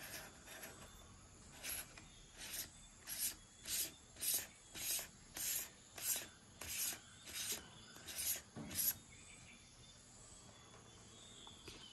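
An ND filter being screwed by hand onto the threads of a lens adapter on a Sony ZV-1. It makes about a dozen short scraping rasps, one every half second or so, which stop about nine seconds in.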